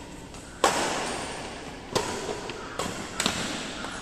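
Badminton rackets striking a shuttlecock, four sharp hits over about three seconds, each echoing in a large hall; the first is the loudest.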